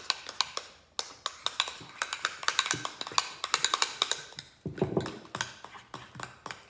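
Spoons clicking and scraping against mixing bowls as thickening slime is stirred, a quick, irregular run of taps.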